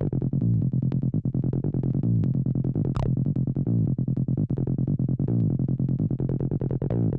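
Acid-style electronic music: a fast, repeating synthesizer line of short clipped notes over a steady low bass. There is a brief high swish about three seconds in.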